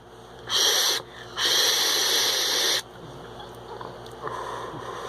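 Someone vaping on a sub-ohm tank: two short puffs, then a long drag of about a second and a half, airflow hissing through the tank's airflow holes and coil, then a softer exhale of the vapour near the end.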